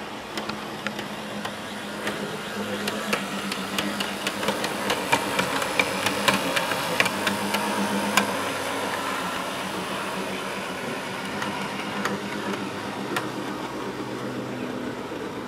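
Realtrack OO gauge Class 143 Pacer model running on track: a steady electric motor hum with the wheels clicking rapidly over rail joints and pointwork, loudest about halfway through as it passes close by.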